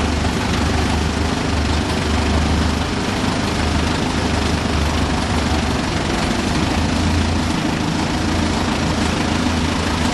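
Engine of a small Brookville 42-inch gauge industrial locomotive running steadily at light throttle while it rolls slowly along the track, heard from inside the cab: a constant low hum under a broad even rumble.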